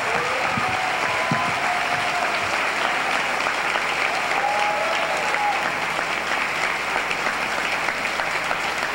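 Audience applauding steadily after a speech.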